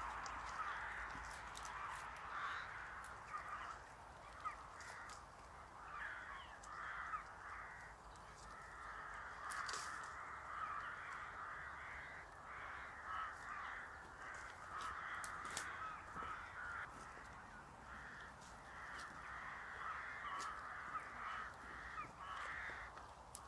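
A flock of birds calling over one another in a continuous chorus of short, crow-like calls, with a few sharp clicks scattered through it.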